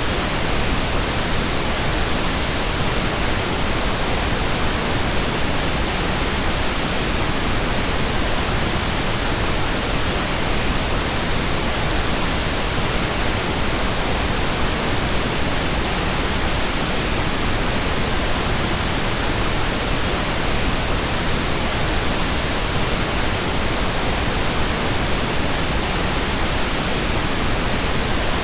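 Steady synthetic pink noise: an even, unchanging hiss spread across all pitches, without any change in level.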